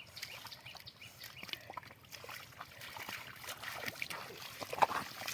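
Shallow water splashing and trickling in a run of small irregular splashes, with one sharper splash near the end.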